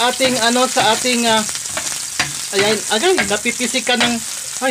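Sliced garlic sizzling and spattering in hot cooking oil in a frying pan as it is stirred with a metal spoon.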